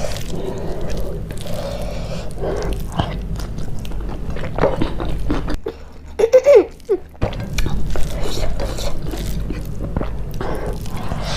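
Close-miked chewing and crunching of food, with many short crunches over a steady low hum. The hum drops out for a moment a little past halfway, where a brief hummed voice sound is heard.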